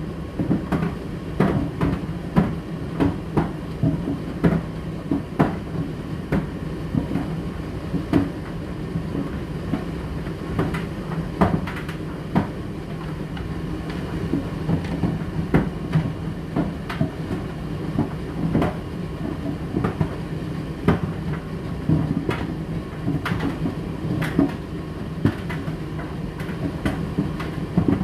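Indesit IDC8T3 condenser tumble dryer running, with a steady low motor hum and frequent irregular knocks as the load tumbles in the drum.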